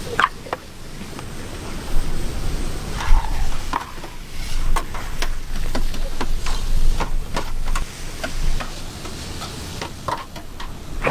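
Metal spatula stirring and scraping food in a giant paella pan, with irregular sharp clinks against the pan over a steady sizzling hiss.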